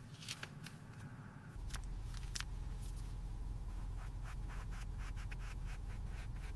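Scattered light clicks and rubbing, as of small objects being handled, over a low steady hum that gets louder about a second and a half in.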